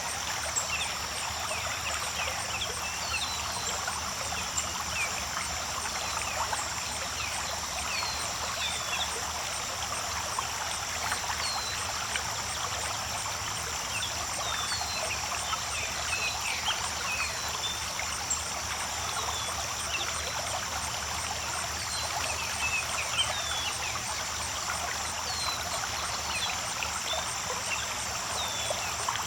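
Creek water babbling and trickling steadily over rocks, with a steady high-pitched hum above it.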